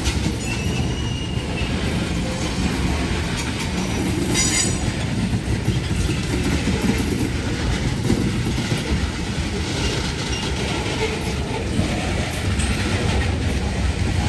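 Loaded tank cars of a freight train rolling slowly past: a steady rumble of steel wheels on rail with light clicking over the rail joints. A brief high wheel squeal rises about four and a half seconds in.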